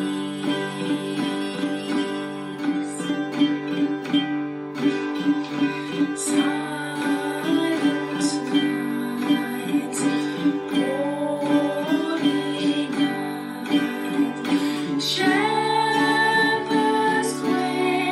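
Women singing a Christmas carol together, accompanied by a strummed stringed instrument.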